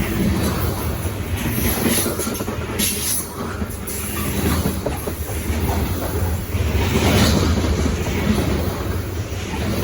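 Loaded freight train of grain hopper cars rolling past, a steady rumble of steel wheels on rail with irregular clacks.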